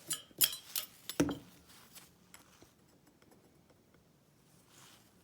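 Several sharp clicks and taps of a metal tool being worked into the seam of a plastic lockout-tagout padlock body to wedge it open, mostly in the first second and a half, then a couple of faint ticks.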